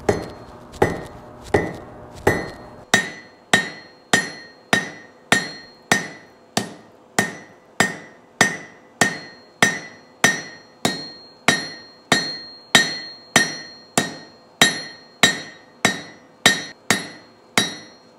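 Blacksmith's hand hammer striking red-hot steel on an anvil in a steady rhythm of about one and a half blows a second, each blow ringing briefly. The hammering is flattening the slug on the end of the bar into a leaf.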